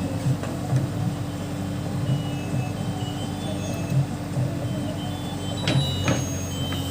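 Diesel engine of a Case backhoe loader running steadily under work, with a few sharp knocks near the end.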